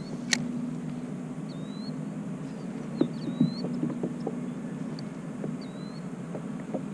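Low steady water and hull noise around a fishing kayak, with scattered small knocks and clicks, one sharper click early on. Short high rising chirps come about every one and a half seconds.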